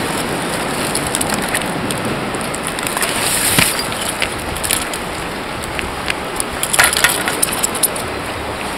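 Surf washing over a rocky shore as a steady hiss, with scattered sharp clicks and crackles; the hiss swells about three and a half seconds in, and a cluster of clicks comes near seven seconds.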